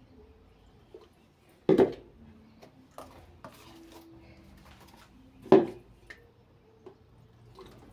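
Metal spoon mixing flour-and-water paste in a plastic bowl, with scattered light clicks of spoon against bowl and two loud knocks, one about two seconds in and one about five and a half seconds in.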